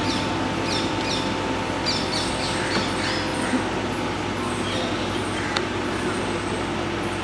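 Small birds chirping in quick repeated bursts of short falling notes, over a steady low rumble of background noise.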